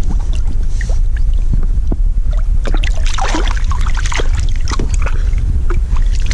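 Wind buffeting the microphone in a heavy, uneven low rumble, with scattered small clicks and knocks that cluster about three seconds in.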